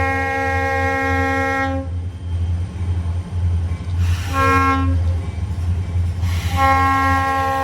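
Locomotive chord air horn sounding several notes at once, loud: a long blast ends about two seconds in, a short blast follows around four seconds, and another long blast begins near the end. This long–short–long run is the closing part of the standard grade-crossing signal. A steady low rumble from the train runs underneath.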